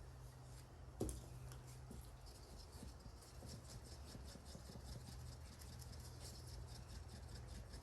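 Light, rapid scratching and ticking from hand work with resin and styrofoam balls, with one sharp knock about a second in, over a low steady hum.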